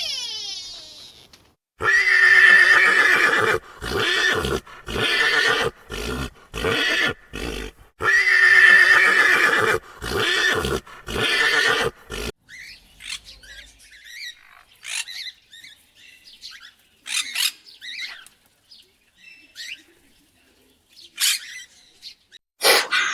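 Loud pitched animal calls in two runs, each one long cry followed by several shorter ones. After about twelve seconds they give way to fainter, scattered short high chirps.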